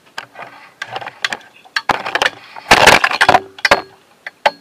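Handling noise from recording gear: a fallen microphone being knocked about and picked up, a string of knocks and clatters with a louder scraping crash about three seconds in.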